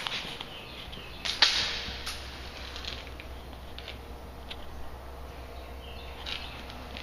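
Scattered scuffs and light clicks from someone moving about on a gritty floor and handling the camera, with one sharp knock about a second and a half in.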